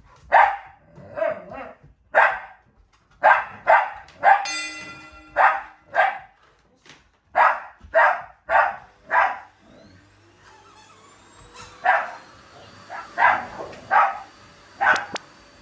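A dog barking at a vacuum cleaner in short, sharp, repeated barks, with one higher yelp partway through. About ten seconds in, the vacuum cleaner's motor whine rises and then holds steady under further barks.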